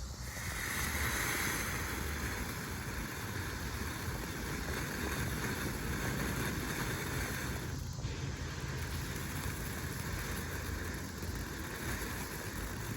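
Firework fountain spraying sparks with a steady hiss that starts suddenly and dips briefly about eight seconds in.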